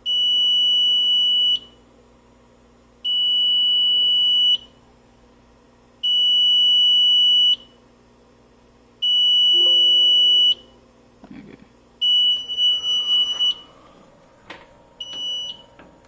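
Mircom FX-2000 fire alarm panel's built-in buzzer sounding a high, steady beep in a slow on-off pattern, about a second and a half on and a second and a half off, five times, then a short sixth beep cut off near the end. A few faint clicks come between the later beeps.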